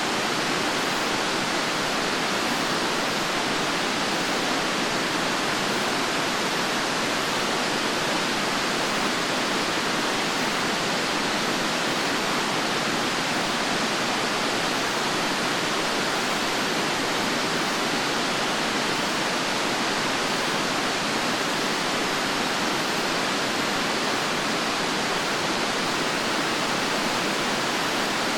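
Fukuroda Falls, a four-tiered waterfall, pouring in a steady, unbroken rush of falling water.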